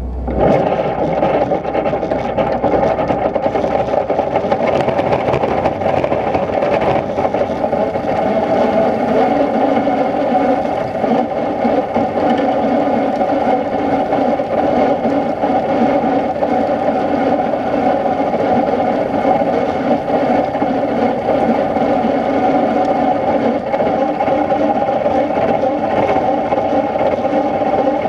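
Tractor-drawn 8-ton dual-spinner lime spreader running, its apron chain feeding damp lime onto the spinning discs that fling it out, a loud, steady mechanical whir and rattle. It starts abruptly right at the beginning.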